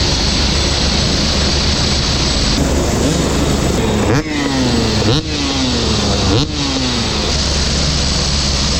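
Two-stroke dirt bike engine revving hard over a steady loud turbine-helicopter drone. The engine surges sharply three times, about four, five and six and a half seconds in, and its pitch falls away after each surge.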